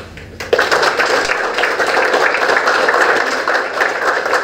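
Audience applauding, starting about half a second in and holding steady as a dense patter of many hands clapping.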